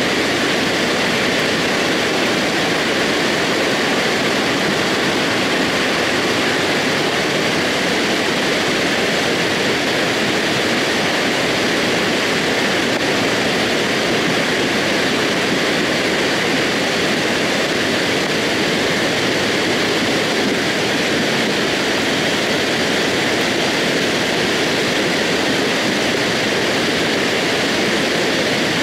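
Debris flow of rock, mud and water coming down a scree slope: a steady, unbroken rushing noise with no let-up.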